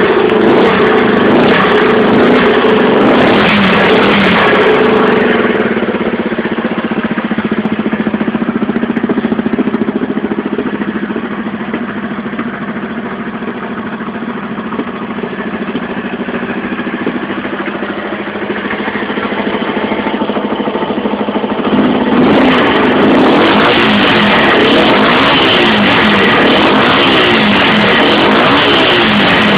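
1970 Honda CB cafe racer engine running through a black can silencer. It is loud at first, settles into a lower, quieter run through the middle, then is revved up and down repeatedly for the last several seconds.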